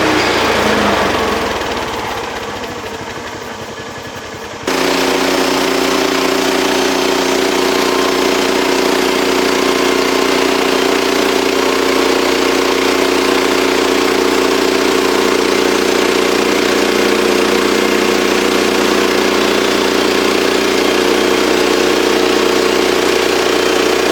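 Sawmill engine running at a steady speed. The sound fades down over the first four seconds, then comes back suddenly at full level and holds steady.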